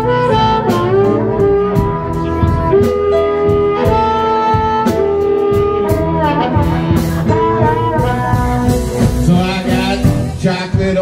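Blues band playing an instrumental break, led by an amplified harmonica cupped against a handheld microphone: long, reedy notes that bend in pitch, over bass and a steady drum beat.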